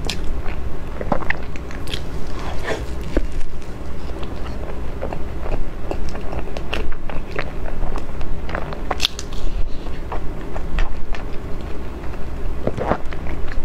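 Close-miked mouth sounds of chewing a mouthful of soft cream-and-mango crepe cake: irregular smacking clicks over a low steady hum.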